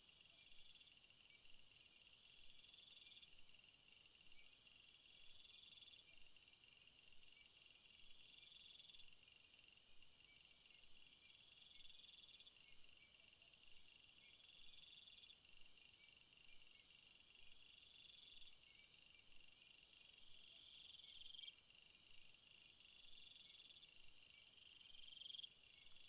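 Forest ambience of insects chirping in chorus, faint and high-pitched: a trill rising in pitch repeats every couple of seconds over other pulsing calls, and a steady high buzz stops about six seconds in.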